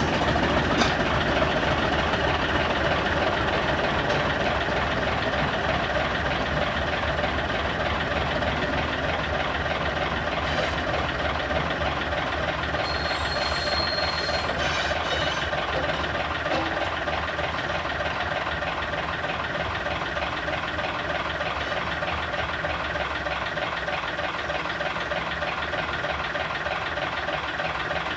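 Heritage diesel train running on the line, its engine and wheels steady, slowly growing a little fainter. A short high-pitched squeal sounds about halfway through.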